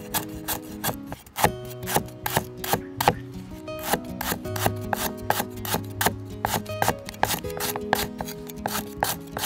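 Cleaver slicing lemongrass stalks on a wooden chopping board: a fast run of sharp knife strikes, about three a second, with a brief pause about a second in.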